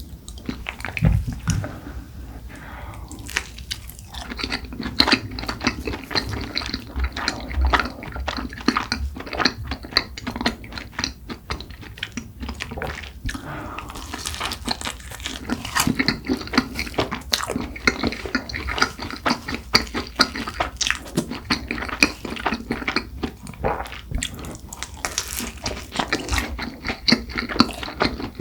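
Close-miked eating of cronuts: steady chewing and biting of flaky croissant-dough pastry, with dense crisp crackles and wet mouth sounds.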